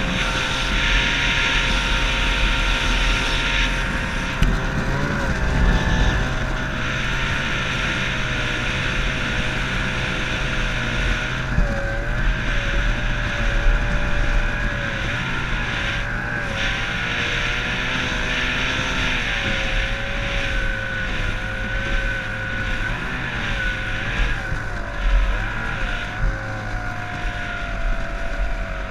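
Yamato 102 two-stroke racing outboard on a 1969 Marchetti hydroplane running under way, its engine note wavering up and down several times, with wind and water noise on the boat.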